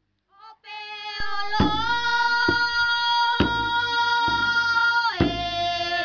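Children singing a welcoming chant in unison, with a drum struck about once a second. About a second and a half in, the voices settle on one long held note for several seconds, then drop to a lower note near the end.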